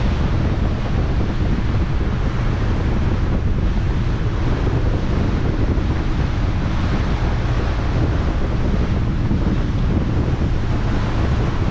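Steady wind buffeting the microphone on the open deck of a moving ferry, over the rush of sea water.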